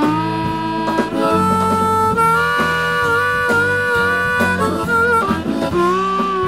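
Blues harmonica solo played cupped against a handheld microphone: long held notes with small upward bends and a wavering vibrato through the middle, over the band's bass and guitar.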